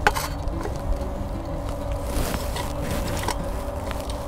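Small clicks and rustles of hands and pliers working electrical wires and wire nuts at a well pump control box, over a steady low rumble with a faint hum. The sharpest click comes just after the start.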